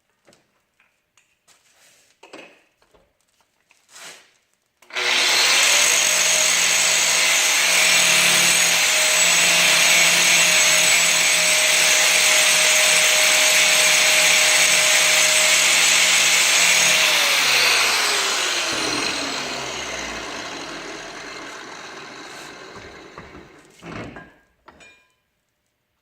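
An angle grinder starts about five seconds in and grinds the steel mower blade steadily for about twelve seconds, taking a little more metal off the heavier side to balance the blade. It is then switched off and winds down, its pitch falling over several seconds. A few light knocks from handling come before it starts and near the end.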